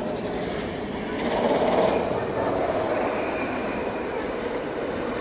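Jersey Devil Coaster train running along its steel single-rail track, a steady rumble that swells about a second and a half in.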